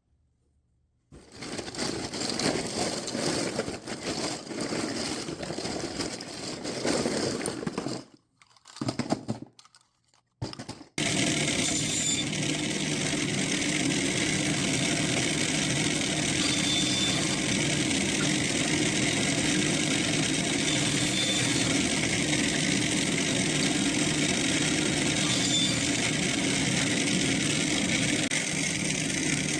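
Several seconds of uneven workshop noise with short breaks, then a power tool or shop machine running steadily at an even pitch for the rest of the time.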